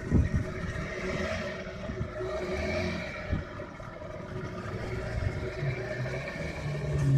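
Glass-bottom boat's engine running steadily, with a few short knocks; a deeper hum comes in near the end.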